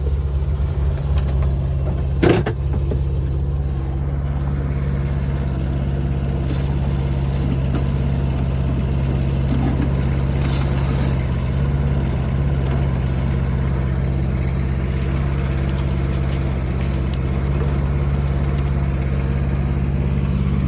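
Mini excavator's small engine running steadily, with a single sharp knock about two seconds in.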